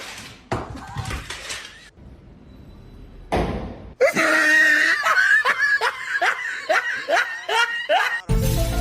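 A person laughing hard, a long run of loud repeated laughs starting about halfway through, after a short burst of noise.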